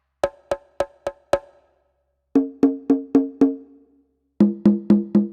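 Electronic drum kit playing its Percussion preset: one pad is struck five times, then a lower-pitched one five times, then a lower one again. The hits are short, pitched and woody, like wood blocks or hand drums.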